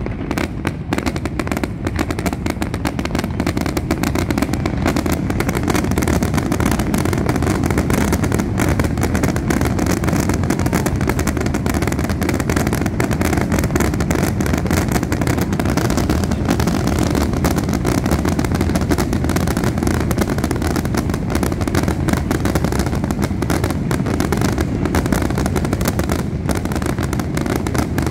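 A fireworks display's aerial shells bursting in a dense, unbroken barrage, the cracks and booms running together over a heavy low rumble. It is the nonstop volley typical of a finale.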